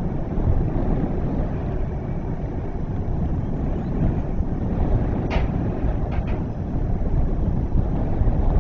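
Wind buffeting an outdoor microphone: a steady, gusting low rumble. A brief click comes a little past halfway and two faint ticks follow about a second later.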